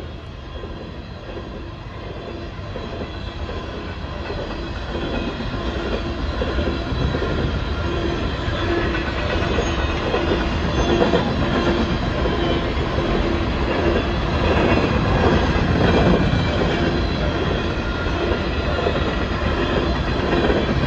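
Empty coal train's cars rolling past, a steady rumble with the wheels clacking over the rail joints, growing louder through the first half.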